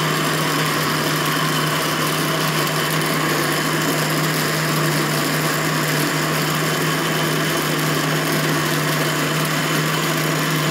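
Electric countertop blender running steadily with a jar full of curuba juice, a loud, even motor hum.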